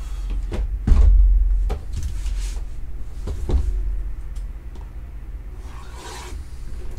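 Cardboard trading-card hobby box slid out of a stack and handled on a table: a few knocks and rubbing, with a heavy thump about a second in. Near the end, plastic shrink wrap crinkles as it is picked open.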